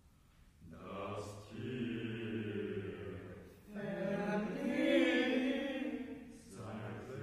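Mixed choir singing a cappella in short, chant-like phrases, low voices holding a steady note under higher moving parts, with crisp hissed 's' consonants between phrases. It enters after a brief hush at the start and pauses briefly twice before a new phrase near the end.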